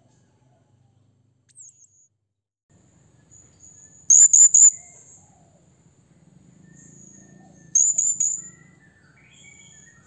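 Blue-crowned hanging parrot (serindit) calling to rivals: two bursts of three shrill, high notes about four seconds apart, with a few fainter thin high calls between them.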